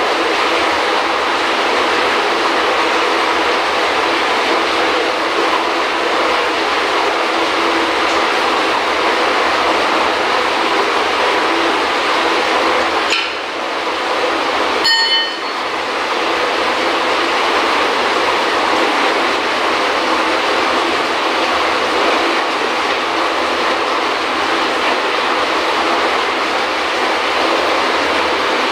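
Steady, loud machinery drone with an even rushing noise. It dips briefly about 13 seconds in, and a short metallic clink rings out about two seconds later.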